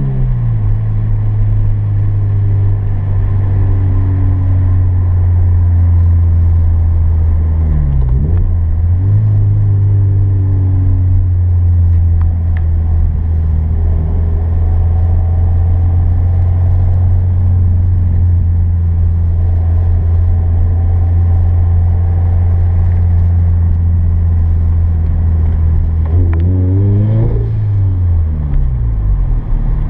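Turbocharged Scion FR-S flat-four engine heard from inside the cabin, pulling steadily at a constant speed. Its note dips and climbs back about 8 seconds in and again near the end as the driver lifts off and gets back on the throttle.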